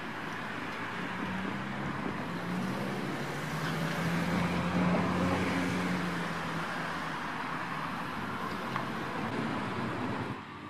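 Seibu 40000 series electric train running in over the points and passing, its traction motors giving a steady low hum over wheel and rail noise. The hum swells about four to six seconds in. The sound drops off abruptly near the end.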